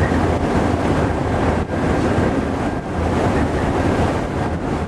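Wind buffeting the microphone on the open deck of a ferry: a loud, steady rushing noise with a heavy low rumble.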